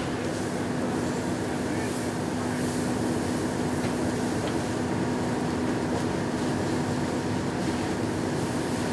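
Box truck burning fiercely, a steady rushing noise of flames with a constant low engine hum underneath.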